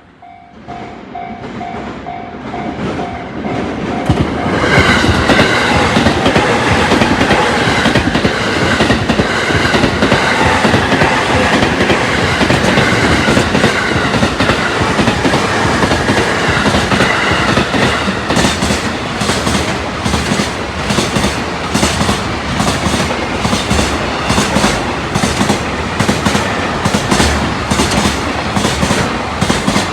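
Level crossing warning bell ringing at about two to three strokes a second, then a freight train hauled by an electric locomotive passing close by from about four seconds in. Its wagon wheels clack over the rail joints in a steady rhythm that stands out more clearly in the second half.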